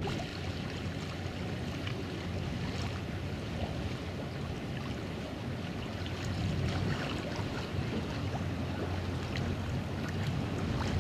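A passenger ferry's engines humming low and steady as it approaches, over waves lapping and light wind on the microphone.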